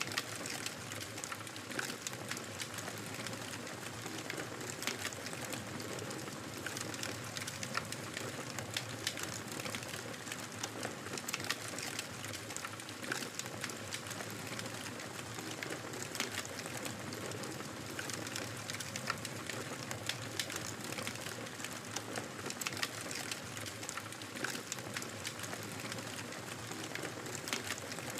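Wood fire crackling steadily, many small sharp pops and snaps over a soft continuous hiss.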